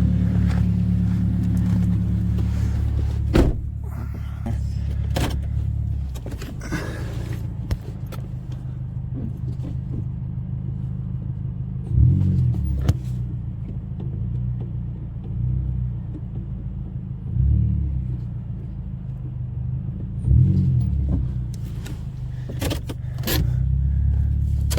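Pontiac Vibe's 1.8-litre 2ZR-FE four-cylinder engine running at low speed as the car is driven up onto car ramps, with several brief rises in engine speed under the load of the climb. A few sharp knocks come in between.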